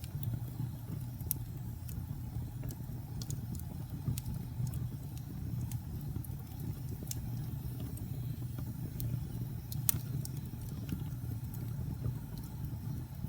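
Wood fire crackling: irregular sharp pops and snaps over a steady low roar of the burning fire, with one louder pop about three-quarters of the way through.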